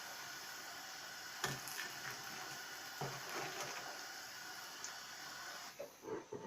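Hot cooking oil sizzling steadily as breadcrumbed, cheese-stuffed mushrooms finish deep-frying and are lifted out, with a couple of light knocks of a utensil about a second and a half and three seconds in; the sizzle dies away near the end.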